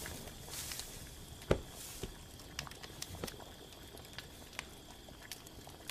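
Faint rustling of straw and cloth with scattered soft clicks as someone handles a person lying on a straw bed, one sharper click about a second and a half in. A faint steady high tone runs underneath.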